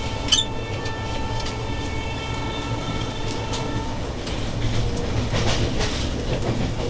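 Express passenger train running at speed, heard from on board: a steady rumble with the wheels clacking over rail joints, more densely in the second half. A steady high tone of several pitches sounds over it and stops about four seconds in.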